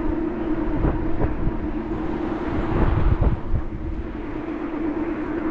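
Wind buffeting an action camera's microphone while riding, in low rumbling gusts that peak about a second in and again around three seconds, over a steady humming drone.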